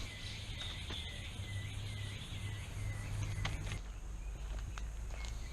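Rainforest insects chirring: a high, even hiss with a repeated warbling chirp about three times a second, both stopping abruptly about four seconds in. A few faint ticks sound over a low rumble.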